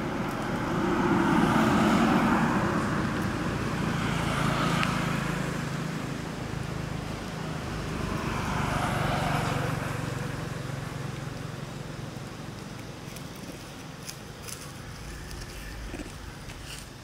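Road traffic passing: a motorbike goes by about two seconds in and a second vehicle about nine seconds in, with a steady engine hum between them that fades away.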